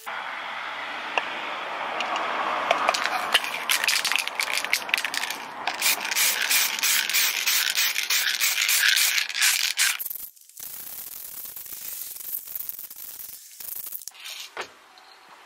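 Paint being sprayed onto a Land Rover Series oil bath air cleaner housing: a steady hiss of spray with quick rattling clicks, dropping to a quieter hiss with scattered clicks about ten seconds in.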